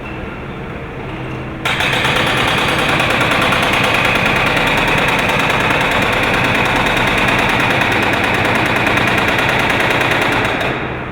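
Excavator-mounted hydraulic breaker hammering rapidly, starting abruptly about two seconds in and stopping shortly before the end, over the excavator's engine running steadily.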